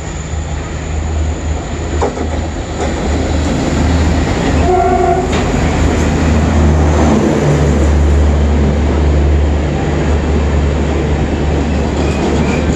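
Twin ALCO WDM-3D diesel locomotives hauling an express train past the platform. The engines' low rumble grows louder as they approach, with a short horn blast about five seconds in. The coaches then roll past with wheels clattering.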